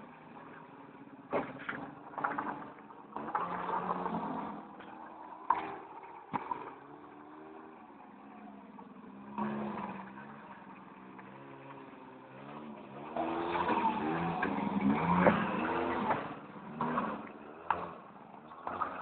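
Small 50cc quad bike engine revving up and easing off again and again as it is ridden around, loudest in a long surge about two-thirds of the way through. A few sharp knocks come in between.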